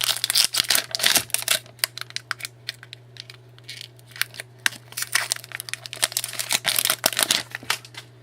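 Crinkling and tearing of a trading-card pack's foil wrapper as it is opened, with cards rustling, in dense bursts through the first second and a half and again from about five seconds to seven and a half. A steady low hum runs underneath.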